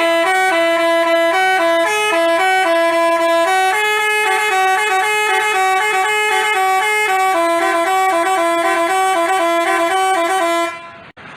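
Basuri telolet horn, a multi-tone electric bus horn, playing a loud, fast melody of stepping notes; it stops abruptly shortly before the end.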